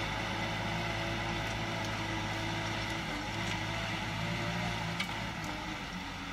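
Kubota tractor's diesel engine running steadily under load as it pulls a plough through the soil, heard from a distance. There is a single sharp click about five seconds in.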